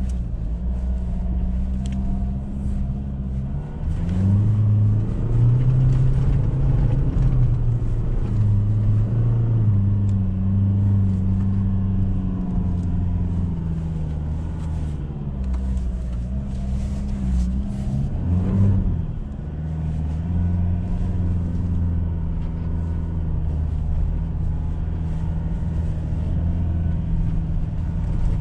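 Ford Ranger pickup's engine heard from inside the cab while driving over sand: a steady engine drone that rises in pitch and gets louder about four seconds in as it pulls harder, with a brief drop and rise in pitch about two-thirds of the way through.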